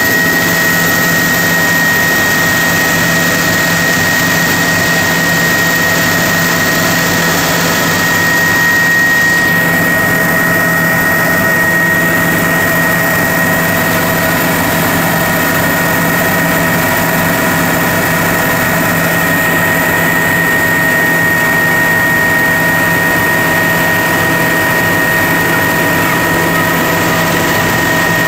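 Helicopter in flight heard from inside the cabin: steady engine and rotor noise with a constant high-pitched whine over it.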